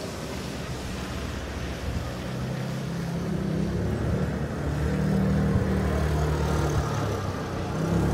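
A car driving past on a snow-covered street, its low engine hum swelling to a peak around the middle and rising again near the end.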